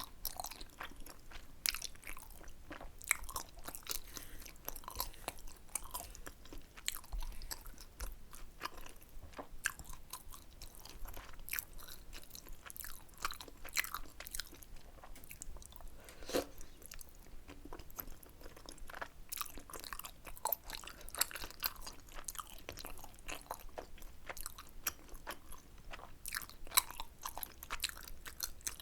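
Close-miked chewing of spicy Korean rice cakes (tteokbokki), with many irregular wet smacks and clicks of the mouth and an occasional bite.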